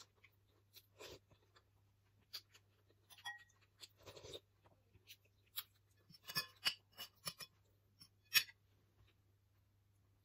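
Metal spoon and fork clinking and scraping against a ceramic plate while scooping fried rice, in faint scattered short clicks, with a quick run of them past the middle and one sharper click near the end.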